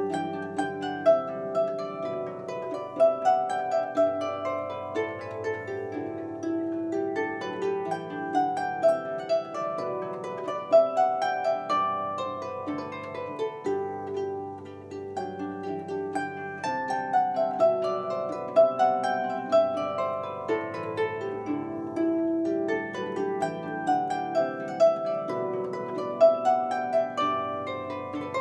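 Walnut DragonHeart 38 lever harp by Heartland Harps played solo: a plucked melody in the middle strings over ringing bass notes.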